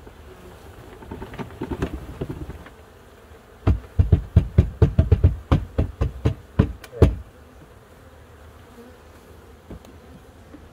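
Honeybee swarm buzzing around a wooden hive box, broken a few seconds in by a rapid run of about fifteen sharp wooden knocks, roughly four a second, as the frames in the box are handled.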